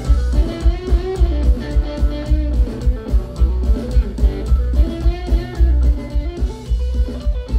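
Live band playing loud: an electric guitar plays a moving melodic line over bass and a steady drum beat.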